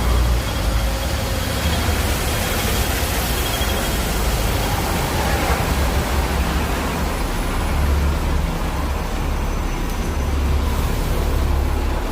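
City street traffic noise: a steady low rumble of vehicles under an even hiss, typical of wet roads on a rainy day.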